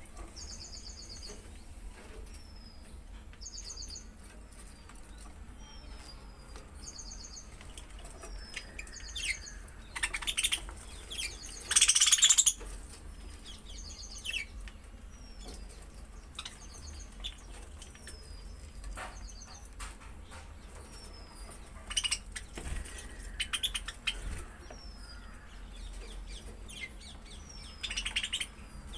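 Budgies chirping, with a short high call repeating about every second and louder bursts of chatter about a third of the way in, again around three quarters through and near the end.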